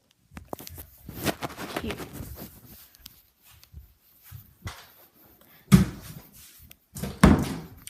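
Rustling and irregular knocking, with two loud thumps near the end.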